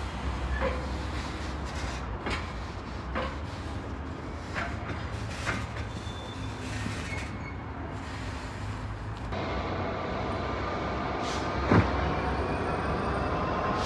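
Empty engineering-train wagons rolling past at low speed, their wheels clacking irregularly over rail joints. About nine seconds in this gives way to a Class 66 diesel locomotive's engine idling with a steady hum, with one sharp click shortly after.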